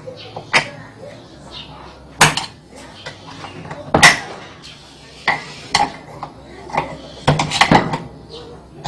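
Metal parts and tools knocking and clinking against each other as a washing machine's drive mechanism is put back together: a series of separate sharp clanks with brief ringing, the loudest about two and four seconds in, and a quick run of knocks near the end.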